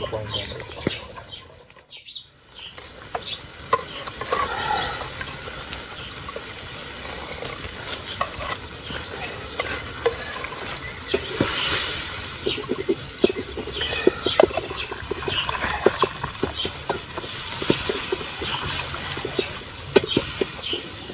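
Metal ladle clinking and scraping against a clay pot as soup is scooped out, with brief splashes of broth as it is served into small clay bowls.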